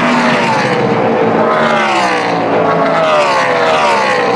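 NASCAR Camping World Truck Series race trucks' V8 engines passing the grandstand one after another, each engine note falling in pitch as it goes by.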